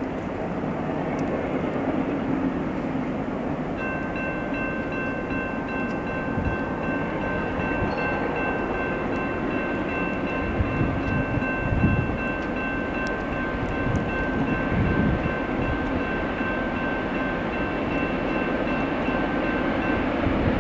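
Diesel freight locomotive approaching under power with a steady engine rumble, its multi-chime air horn sounding one long continuous chord from about four seconds in until just before the end.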